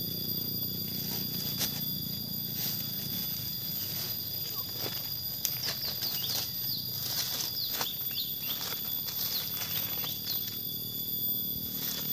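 Outdoor rural ambience: steady high-pitched insect buzzing, with a string of short falling bird chirps in the middle and scattered light rustles and taps.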